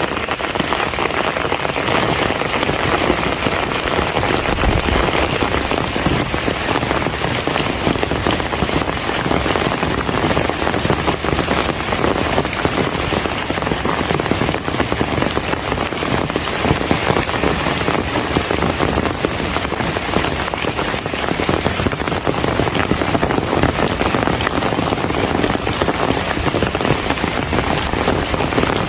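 Heavy monsoon rain falling steadily, a dense hiss of drops striking surfaces with many fine patters mixed in.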